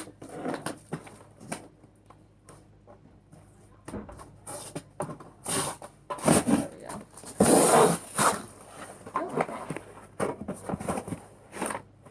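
Cardboard and plastic laptop packaging being handled and pulled apart: irregular rustles and scrapes, loudest in a long rustling burst a little past the middle.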